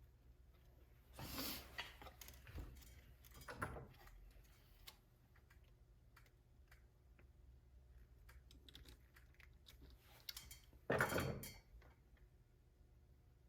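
Hands handling small plastic parts: scattered light clicks with three brief louder scrapes or rustles, about a second and a half in, near four seconds and about eleven seconds in.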